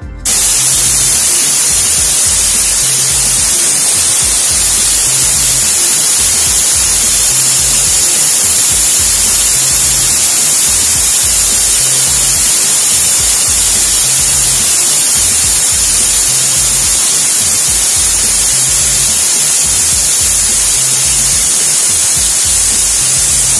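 Loud, steady hiss of compressed air from the compressor's air line, starting suddenly just after the start, over background music with a regular low beat.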